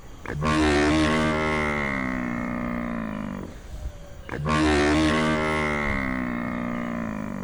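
Buffalo mooing twice: two long calls of about three seconds each, the second starting about four seconds in.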